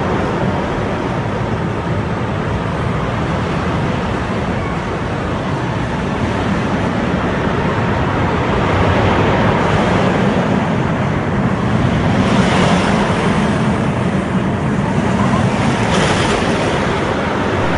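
Steel roller coaster trains running on the track, a steady rumble that grows louder in the second half as a train passes close by.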